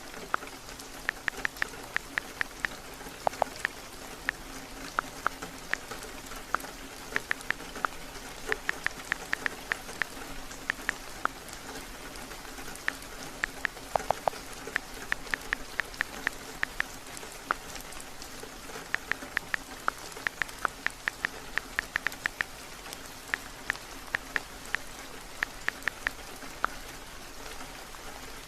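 Steady heavy rain, with bursts of quick, sharp clicking taps from typing on a phone's touch keyboard.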